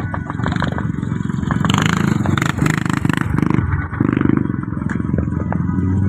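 Supercar engine revving loudly, with scattered sharp cracks over it and a louder surge in the middle.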